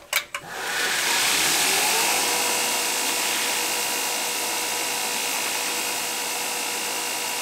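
Knife maker's belt grinder starting up: its motor whine rises in pitch over the first second or so, then it runs steadily with a hiss from the belt.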